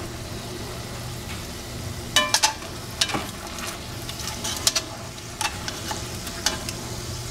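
Chicken thighs sizzling in hot oil in a Dutch oven, with several sharp clicks of metal tongs against the pot as the pieces are picked up and lifted out.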